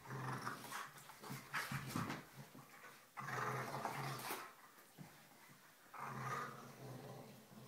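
Two dogs play-growling at each other while wrestling, the growls coming in three main bouts of about a second each.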